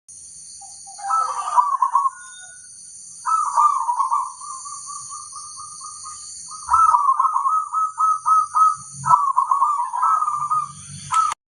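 Zebra dove (perkutut) cooing: four or five phrases, each a run of quick, rolling coo notes, with short pauses between them. A steady high hiss runs underneath.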